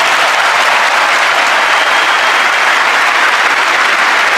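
Large stadium crowd applauding and cheering steadily.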